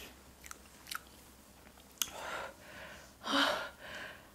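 Faint mouth sounds of someone eating very hot chicken wings: a few soft wet clicks while chewing. Then, from about two seconds in, several short, hissing breaths through the mouth, the sharp breathing of a mouth burning from the hot sauce.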